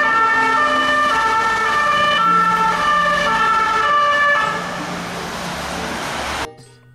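Two-tone emergency siren of a French police vehicle, alternating between two pitches, with street traffic behind it. Near two-thirds of the way in the siren stops and only the traffic hiss goes on, until it cuts off suddenly shortly before the end.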